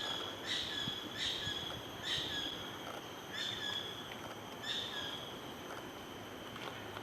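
A bird calling in a series of short, sharp, high notes that come further apart and stop about five seconds in, over a steady high-pitched drone.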